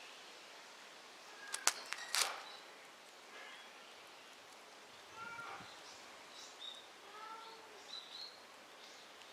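A lost kitten mewing: short, high, arched cries twice in the second half, after a few sharp snaps, like dry twigs breaking, about two seconds in.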